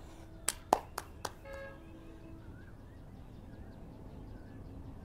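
Four sharp clicks about a quarter second apart, then a short vehicle horn toot, with faint chirps after it.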